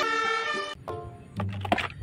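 Fire engine siren sounding, cutting off abruptly under a second in, followed by light background music.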